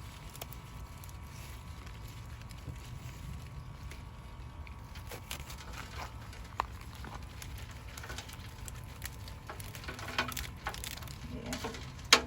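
Knife cutting through beet stems and greens: faint scattered snips, crackles and leaf rustles over a steady low rumble, with one sharp click near the end.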